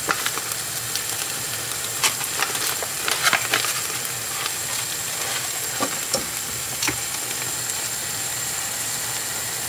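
Chicken and bell peppers sizzling in a frying pan, a steady hiss with a few sharp clicks. A wooden spoon stirs the pan near the end.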